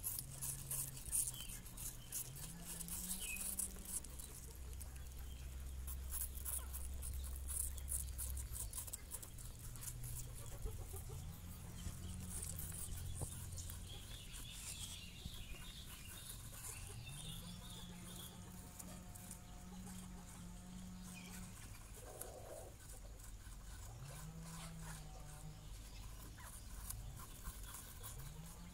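Baby rabbits nibbling and gnawing an apple: a dense run of fine, quick crunching clicks from small teeth on apple flesh, thickest in the first few seconds and again around the middle. Beneath it, a low hum rises in pitch and holds several times.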